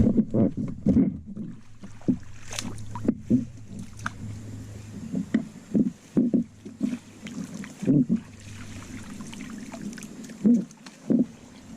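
Irregular knocks and thumps on a small boat as a fishing net is worked in by hand, over a low steady hum that stops about nine seconds in.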